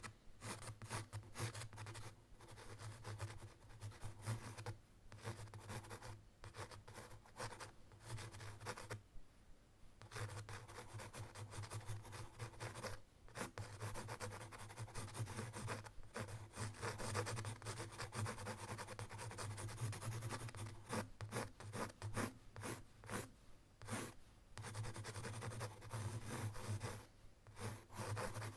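Writing and drawing: a writing tool scratching across a surface in quick, uneven strokes. It comes in runs with short pauses between them.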